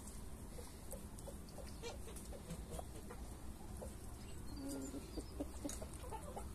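Chickens clucking, a scatter of short separate clucks that come more often in the second half.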